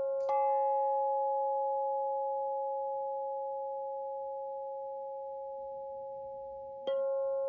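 Two singing bowls of different pitch are struck in turn with a mallet and left to ring, their two steady tones sounding together. A strike about a third of a second in brightens the higher bowl, and another strike near the end renews the ringing. Each fades slowly between strikes.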